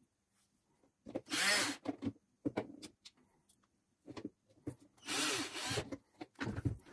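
Rubbing and scraping as a hand presses the LED chip board down onto its heat sink inside the plastic lamp housing, seating it on the silicone thermal paste. Two main scrapes come about a second in and about five seconds in, with a few light knocks near the end.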